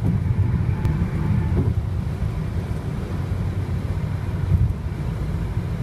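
Steady low rumble of a car moving at highway speed, heard from inside the cabin: tyre and wind noise.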